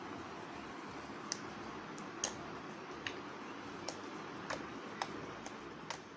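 Slime being played with: about nine small, sharp clicks and pops at irregular intervals over a steady hiss, fading out at the end.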